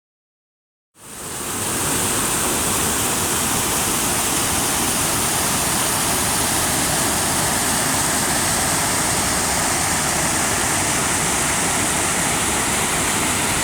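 Rushing river water, a steady loud rush with no pauses, fading in about a second in.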